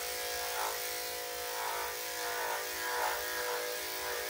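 Electric dog grooming clipper buzzing steadily as it is run over a Cocker Spaniel's damp coat. The hum swells slightly several times, about once a second.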